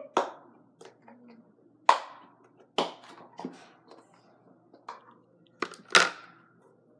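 Scattered sharp clicks and knocks of objects being handled: about six louder ones spread irregularly, with fainter taps between.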